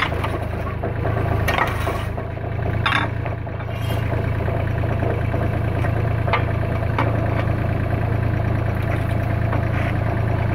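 Terex TC25 mini excavator's diesel engine running steadily, with a few sharp clanks from a crowbar levering at the rubber track and idler wheel, mostly in the first three seconds.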